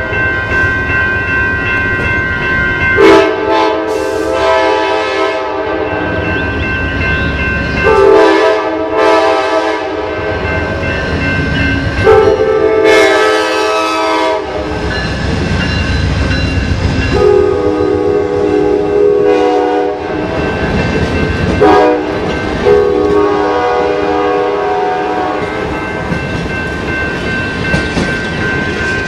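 Amtrak GE P42DC diesel locomotive's horn sounding again and again as the train runs close past. The blasts swell loudest about every four to five seconds, over the low rumble and rail clatter of the passing cars.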